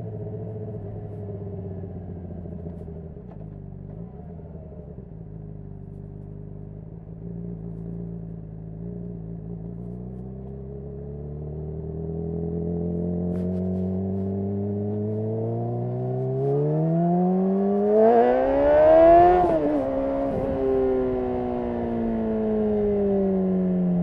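Honda CBR600RR's 599 cc inline-four through a Yoshimura RS5 exhaust, running at low steady revs, then revving up hard to its loudest peak about three-quarters of the way through. The revs drop sharply off the throttle and wind down as the bike slows.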